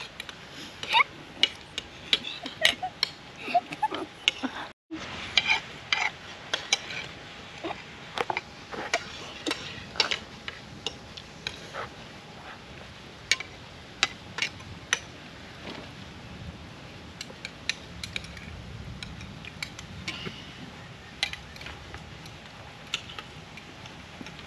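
Metal utensils clinking and scraping against dishes: irregular sharp taps, more frequent in the first half.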